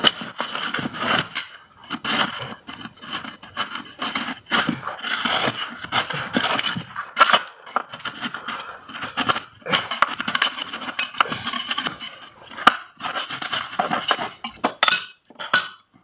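Metal scraper blade scraping bubbled old paint and filler off the base of a smooth wall, in many short, irregular strokes with brief pauses between them.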